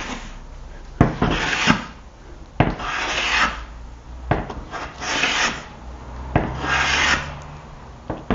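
Hand plane cutting a chamfer along the edge of a wooden board: about five strokes, each opening with a knock as the plane lands and followed by about a second of shaving hiss.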